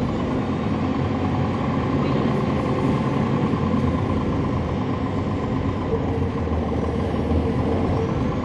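Cummins ISL9 inline-six diesel engine of a NABI 40-foot transit bus running steadily, heard from inside the bus, with an even, unchanging hum.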